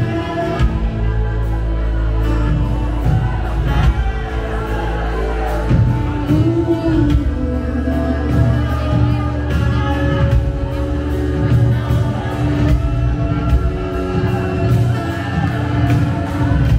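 Live worship band playing, with a woman singing over electric and acoustic guitars and bass.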